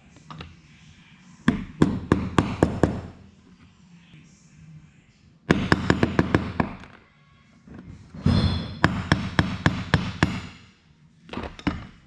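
Small ball bearings being tapped into a 3D-printed plastic part with a short metal rod: rapid light knocks, about six a second, in three bursts and a short fourth one near the end.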